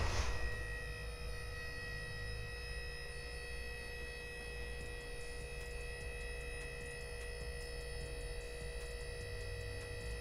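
Electric hydraulic pump of a portable scissor car lift running steadily, raising the car: a constant motor hum with several fixed tones.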